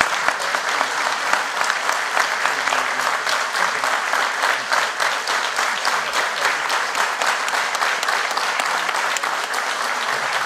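Steady applause from a large seated audience.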